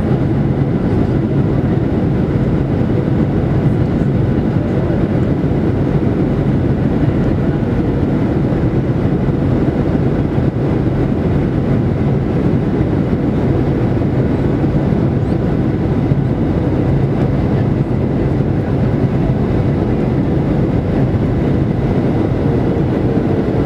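Cabin noise in a Boeing 737-800 heard from a window seat over the wing through final approach and onto the runway: a steady rumble of CFM56 engines and rushing air. A faint steady whine sits over it and drops slightly in pitch near the end.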